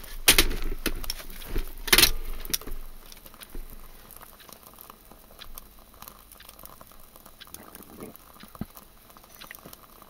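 Pot of water on a Swiss Army stove heated by a burning solid-fuel block, just coming to the boil: faint, irregular ticking and crackle. Two sharp knocks in the first two seconds are the loudest sounds.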